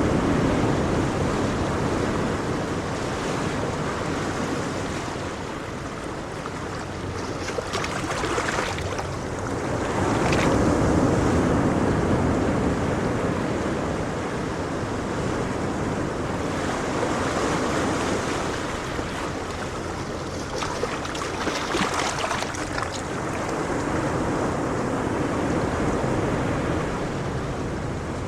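Calm ocean waves breaking and washing in, a steady rush of surf that swells and eases every several seconds.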